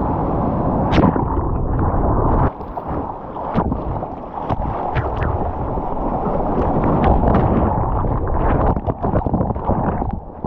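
Rushing whitewater and wind buffeting an action camera's microphone at water level, with many sharp splashes of water striking the camera housing.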